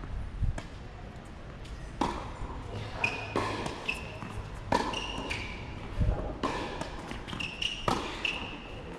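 Tennis rally on a hard court: sharp racket strikes and ball bounces about every second or two, with short high squeaks in between.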